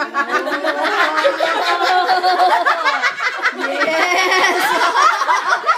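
Several people laughing together, their voices overlapping.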